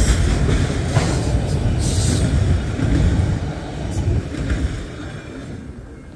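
The tail end of a long freight train rolling past: a low rumble of steel wheels on rail with a few sharp clanks, dying away over the last few seconds as the final cars pass and recede.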